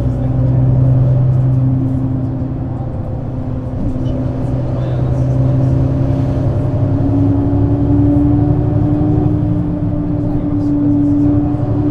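Mercedes-Benz Citaro C2 city bus's diesel engine running under way; its tone holds steady at first, then climbs slowly through the second half as the bus gathers speed and drops back near the end.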